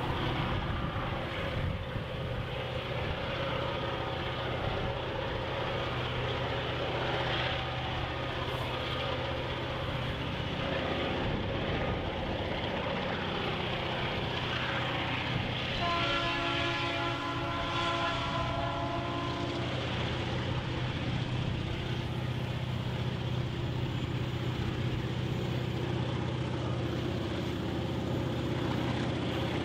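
An approaching freight train led by a 2050 class diesel locomotive, its engine a steady low drone. A little past halfway, the locomotive's horn sounds one long chord of several notes for about four seconds.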